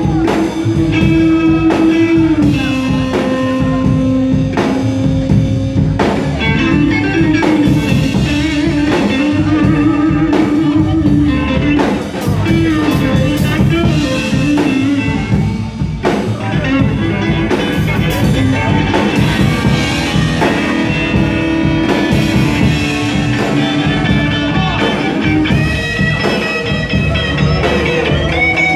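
Live rock and roll band playing an instrumental break: electric guitar playing lead lines with held and bending notes over upright double bass and drum kit.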